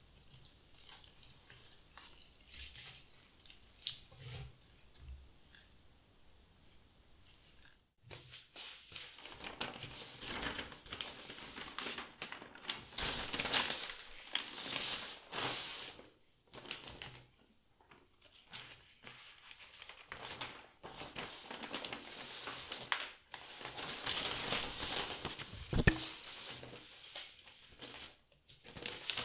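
Sheets of newspaper rustling and crinkling as they are unfolded and spread flat, in repeated bursts of crackling paper noise. The first part is quieter, with soft rustles and a few light taps.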